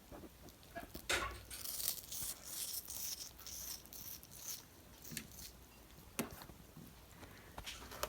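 Parrot eating, its beak tearing and crunching food in irregular crackles and clicks. The sounds are busiest between about one and five seconds in.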